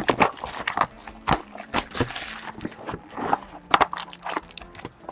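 Trading-card packaging and cards being handled: crinkling wrapper and cardboard, with a string of short clicks and taps and a denser crackling stretch about two seconds in.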